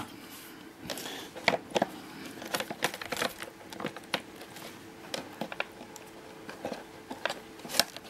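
Irregular small plastic clicks, taps and knocks as the brush roll is fitted back into the Vax Air Cordless Lift vacuum's clear plastic floor head by hand, over a faint steady hum.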